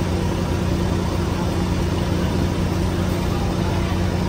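A bus engine idling with a steady low hum.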